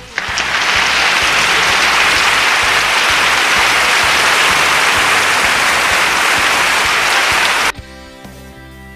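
Applause sound effect that starts suddenly and is cut off abruptly after about seven and a half seconds, over background music with a steady beat.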